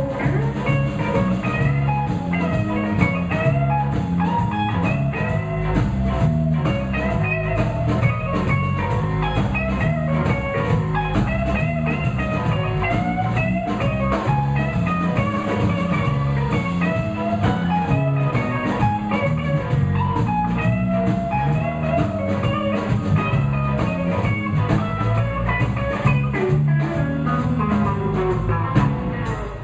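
Live blues band playing an instrumental break: a lead line with bending notes over a steady drum beat and bass.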